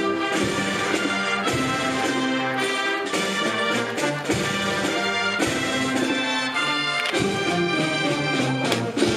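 Orchestral background music with brass instruments playing sustained notes.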